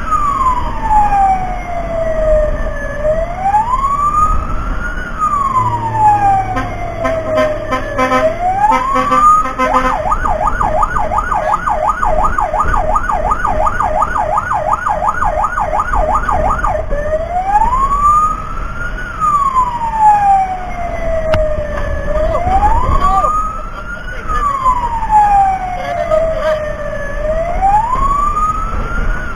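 Fire engine's electronic siren wailing, rising and falling about every four seconds. About ten seconds in it switches for roughly seven seconds to a fast yelp of about four sweeps a second, then goes back to the wail, over a steady low engine and road rumble.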